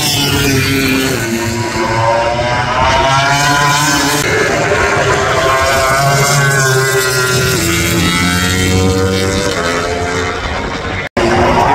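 Racing motorcycle engines at full speed on a circuit, their pitch rising and falling in steps as they shift gears, with more than one bike heard at once. The sound briefly cuts out near the end.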